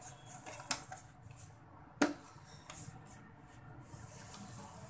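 Quiet kitchen room tone with a few small clicks and one sharp click or tap about two seconds in.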